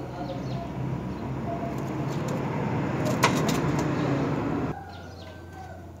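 Common myna's wings flapping as it leaves the nest, a rushing noise that grows louder, with one sharp click about three seconds in, then cuts off abruptly near the end.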